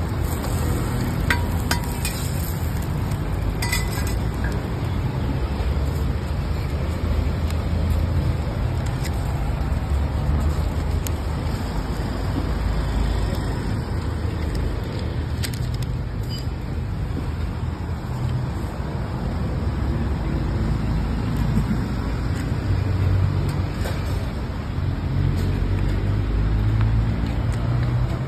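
Steady low rumble of street background noise, with a few light clicks of a metal spatula on a flat roti griddle.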